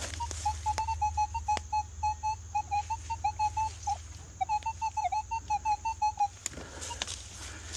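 Minelab metal detector sounding a rapid string of short beeps at one mid pitch that wobbles slightly, signalling a target under the coil. The beeps stop about six seconds in, followed by a couple of sharp knocks.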